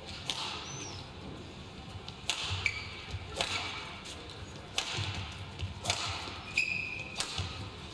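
Badminton rackets striking a shuttlecock back and forth in a singles rally, about six hits roughly a second apart, with short squeaks of shoes on the court mat and the thud of footwork between them.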